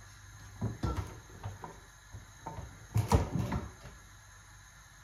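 Kitchen cupboard doors being opened and shut: a few knocks and clicks about a second in, then a louder cluster of knocks around three seconds in.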